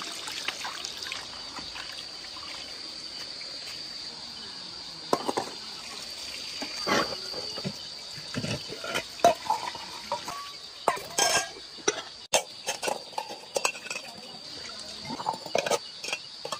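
Running water splashing while stainless steel bowls are rinsed, with repeated clinks and knocks of the metal bowls, starting about five seconds in. A steady high drone of night insects carries on underneath.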